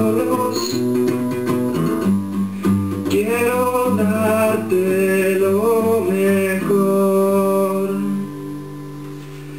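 Classical guitar strummed in chords while a man sings a melody. Near the end the singing stops and the last chord is left ringing more quietly.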